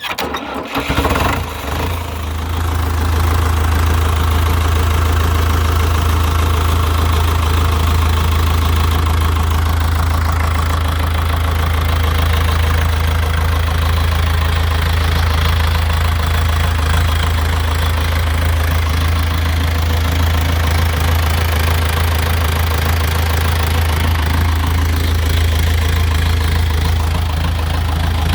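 Deutz four-cylinder diesel engine on a Freeman 370 baler cold-starting after months of sitting: it fires up suddenly, runs unevenly for a second or two, then settles into a steady diesel idle.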